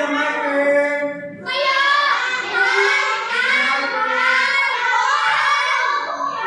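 Group of children's voices singing together in unison, with a brief break about a second and a half in.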